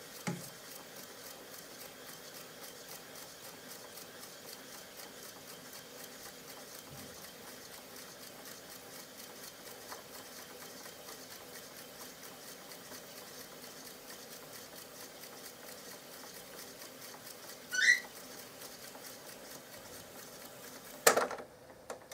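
Tesla B 101 reel-to-reel tape recorder fast-winding its tape: a quiet, steady whir with fine, even ticking from the spinning reels. A short rising squeak comes about 18 seconds in, and a loud click near the end as the transport is stopped.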